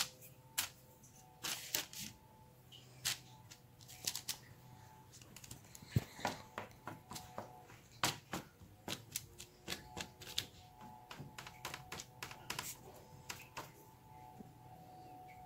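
A fork pricking rounds of pizza dough on a parchment-lined baking tray, its tines tapping through the dough onto the tray in quick, irregular clicks that come in small clusters.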